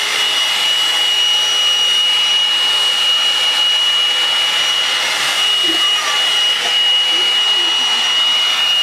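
Hot-air brush (a blow-dry volumizing brush) running steadily. Its fan motor gives a constant high whine over the rush of blown air.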